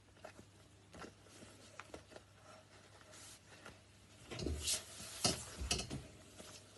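Faint rustling and handling noises from shoelaces and clothing. A little past the middle comes a cluster of louder knocks and scrapes as the phone camera is shifted.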